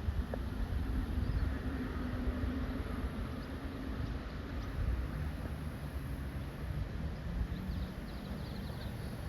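Gusty wind buffeting the microphone, a low rumble that rises and falls, over the rush of wind through tall trees.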